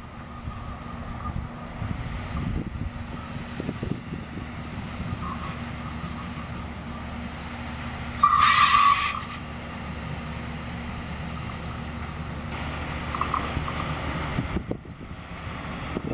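Diesel engine of railway track-work equipment running steadily, with a loud burst carrying a high tone about eight seconds in that lasts about a second.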